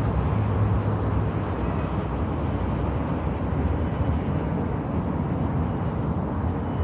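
Steady low rumble of outdoor city noise, with no single sound standing out.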